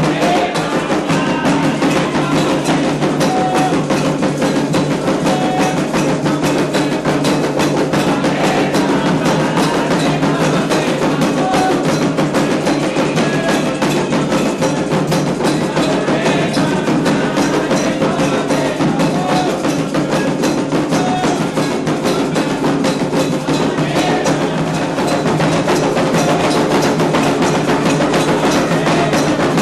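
Candomblé ritual drumming: atabaque hand drums played in a fast, dense, unbroken rhythm, with a struck metal bell keeping time.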